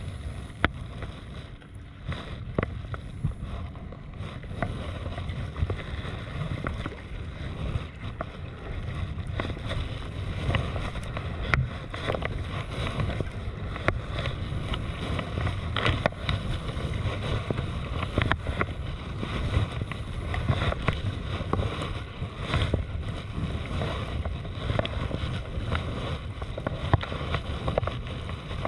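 Sea kayak being paddled on choppy salt water: paddle blades dipping and splashing, water slapping and lapping against the hull, with wind rumbling on the microphone.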